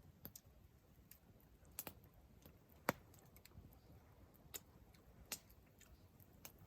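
Faint campfire crackling: scattered sharp pops, about one a second, with the loudest one about three seconds in.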